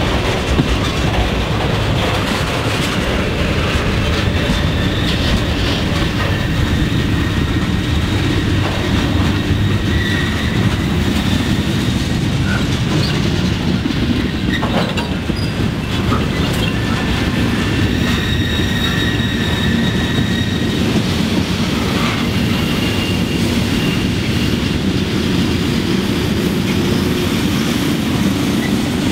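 Freight cars of a Norfolk Southern mixed freight train rolling past close by: a steady rumble of steel wheels on the rail. Faint high-pitched wheel squeal comes and goes.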